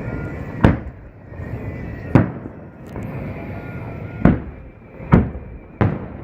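Aerial fireworks shells bursting: five sharp booms, the last two close together, over a continuous low rumble.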